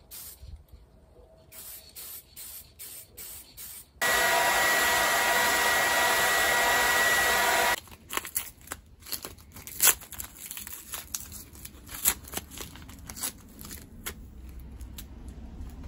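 Aerosol spray can hissing: a few short puffs, then one long steady spray of about four seconds that stops abruptly, followed by clicking and rattling as the can and part are handled.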